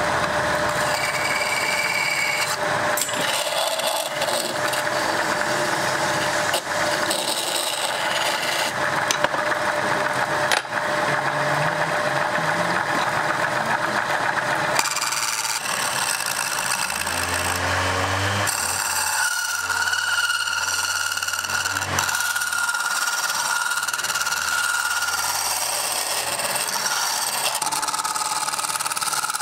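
Wood lathe running while a hand-held turning tool scrapes and cuts the spinning wooden goblet blank: a steady scraping hiss over a constant whine.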